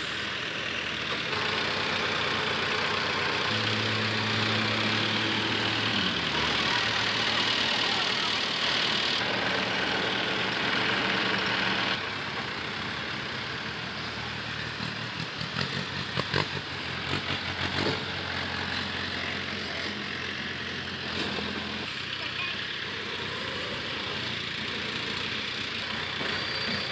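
Diesel engines of the Mahindra Arjun 555 and Swaraj 855 tractors running, revving up and dropping back several times as a tractor moves around. A few sharp knocks come soon after the middle.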